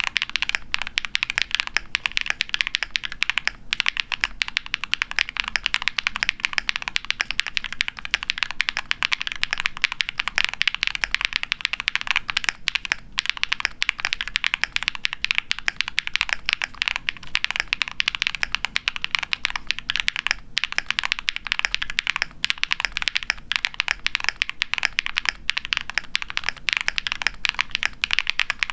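Fast, continuous typing on a mechanical keyboard: a KBDfans Tofu60 aluminum case with a POM plate, plate and case foam, factory-lubed Huano Cherry Blossom linear switches and PBT keycaps, giving a high-pitched clack. The keystrokes run on steadily with a few brief pauses.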